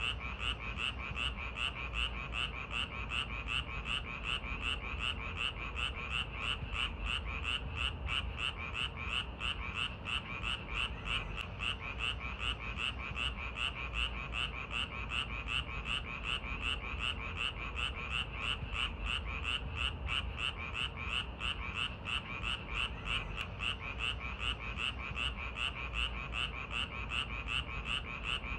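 A chorus of frogs calling on a summer night: a steady, rapid train of croaks, several a second, that does not let up.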